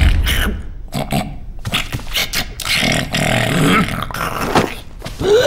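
A cartoon character's vocal sound effects: a rapid, irregular string of short noisy mouth sounds and grunts, with a brief rising squeal near the end.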